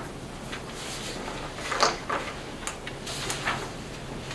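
Sheets of paper being handled and turned over, a few short, irregular rustles.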